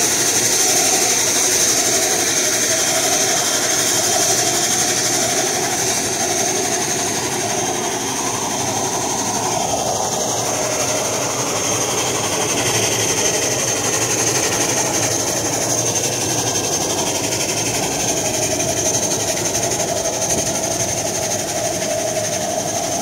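Parked ATR turboprop airliner's turbine engine running, a steady high whine over a constant rumble.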